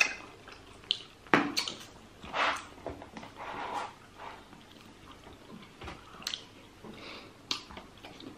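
Close-miked wet eating sounds of roast chicken: chewing, lip smacks and sharp mouth clicks at irregular intervals, with a slurp as sauce is sucked off the fingers.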